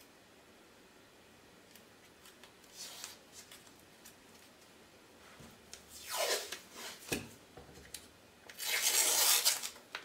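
Strips of blue painter's tape being pulled off the roll and ripped by hand: a faint rasp about three seconds in, a louder one about six seconds in, and the loudest, about a second long, near the end.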